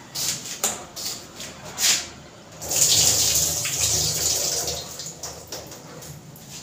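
Water pouring and splashing for about two seconds, starting a little under three seconds in and then fading. Before it come several short clicks and knocks of dishes being handled.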